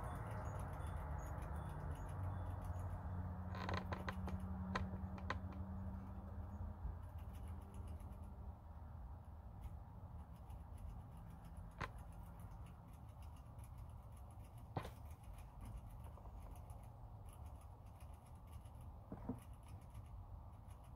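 Faint rustling and a few light clicks and taps of hands handling cut flowers on a table, over a low steady hum. There is a small cluster of clicks about four seconds in and single ones later on.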